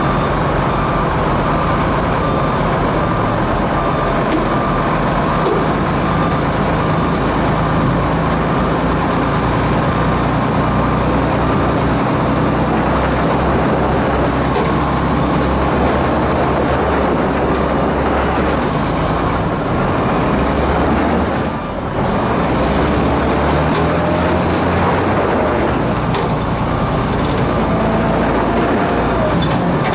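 Heavy diesel engines of a wheel loader and a stuck articulated rock truck running hard, their pitch and load shifting as the loader pulls on a chain to drag the truck out of the soft ground. A reversing alarm beeps during the first couple of seconds.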